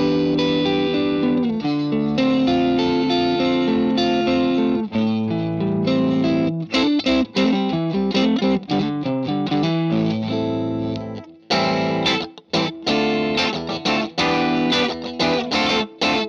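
Electric guitar played through the Boss IR-2 amp-and-cabinet simulator's Vox AC30 model, with all controls at the halfway point. It starts with held, ringing chords, and about six seconds in it changes to shorter, choppier strummed chords.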